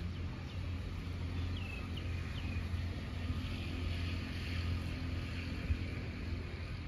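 Outdoor ambience: a steady low rumble, with a few short high chirps in the first half.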